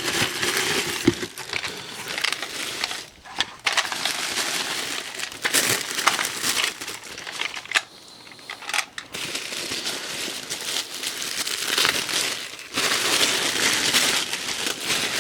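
Crinkly plastic packaging being handled and squeezed: irregular crinkling and crackling with sharp little clicks, pausing briefly about halfway through.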